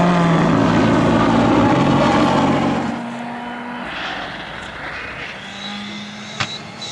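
Rally car engine running hard at high revs, loud for about three seconds, then abruptly much quieter, leaving a steadier, more distant engine note. A sharp click comes near the end.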